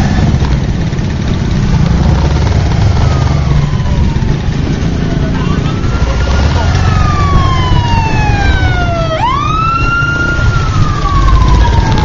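Steady low rumble of a motorbike riding in slow, congested traffic. Over it, from a few seconds in, a siren wails, each cycle rising quickly and then sliding slowly down in pitch, several times.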